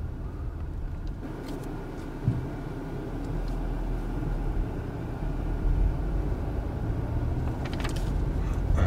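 Car driving in town, heard from inside the cabin: a steady low engine and road rumble that grows louder a few seconds in, with a single thump a little over two seconds in.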